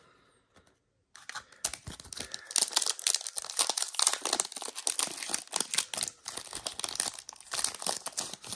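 Foil wrapper of a Panini Prizm trading-card pack crinkling and being torn open by hand, a dense crackle that starts about a second in.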